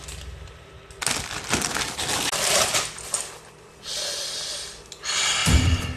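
Plastic packaging crinkling and rustling as it is handled, then a long sniff through the nose about four seconds in, and a louder low thump near the end.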